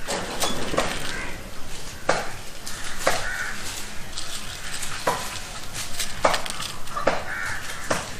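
Short rustling and scraping noises of hands handling seeds and soil, about one a second, with a bird calling briefly three times in the background.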